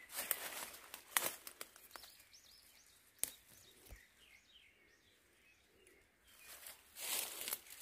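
Leaves and twigs of a wild rose bush rustling close to the microphone, with sharp clicks and snaps, loudest just after the start and again near the end. A small bird chirps faintly several times in the middle.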